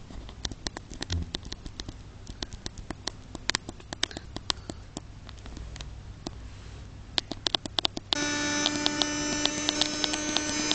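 Scattered light clicks and rustles over a low hum. About 8 seconds in, a Numatic Henry vacuum cleaner switches on, and its motor runs with a steady whine that is louder than what came before.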